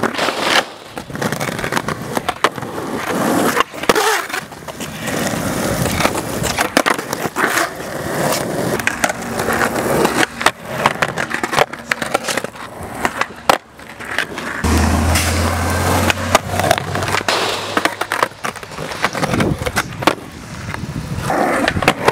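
Skateboard wheels rolling over rough stamped concrete, broken by repeated sharp clacks and slaps of the board's deck and tail hitting the ground as tricks are tried.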